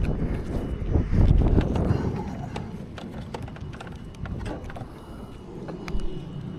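Irregular knocks and clatter over a low rumble, loudest about a second in, then easing off.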